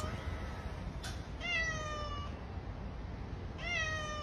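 Calico cat meowing: two drawn-out meows about two seconds apart, each sliding slightly down in pitch.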